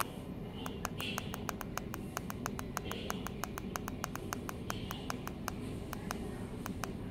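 Rapid clicking of the push buttons on an S830 e-bike LCD display's keypad, about five or six presses a second, as the display is stepped through its parameter settings, over a steady low hum.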